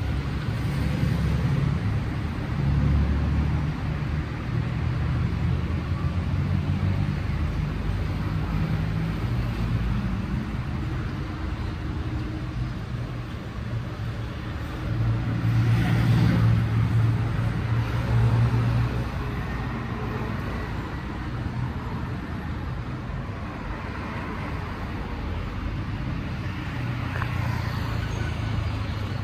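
City street traffic: cars and buses running along the boulevard, a steady rumble of engines and tyres that swells louder about halfway through as a vehicle passes close.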